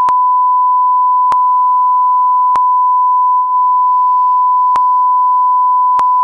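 A loud, steady, single-pitch censor bleep held without a break, covering a stream of swearing; a faint voice can be heard under it in the second half.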